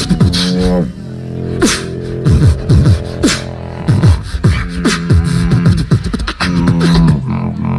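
Two beatboxers performing a duo routine into microphones: held, sung bass notes and repeated falling bass sweeps under sharp snare- and hi-hat-like mouth percussion.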